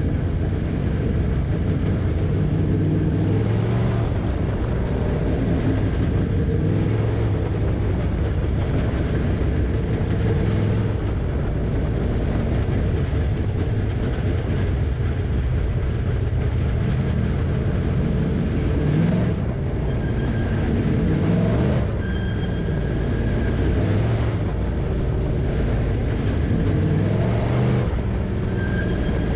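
Dirt late model race car's V8 engine heard from inside the cockpit, running at low speed with the revs rising and easing off again every few seconds.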